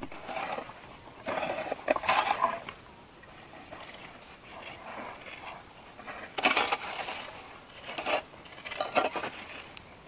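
Irregular scraping strokes of a tool dragged over a hard surface, with a few sharp ticks, as a circle for the furnace is scratched out.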